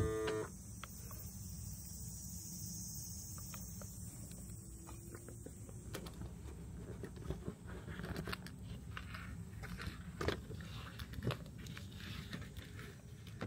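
Fabric rustling, light scrapes and small taps of a quilted fabric sunshade being handled and pressed into place against a car's side window, mostly in the second half. A short click right at the start.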